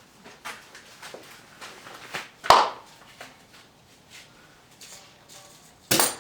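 Handling noises from cleaning debris off a lawn mower: scattered light clicks and rustles, a sharp metallic knock with a brief ring about two and a half seconds in, and two more hard clanks near the end.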